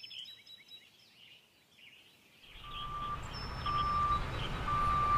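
Faint birds chirping, then about two and a half seconds in a combine harvester's engine comes in and grows louder, with a steady electronic beep about once a second, each beep about half a second long.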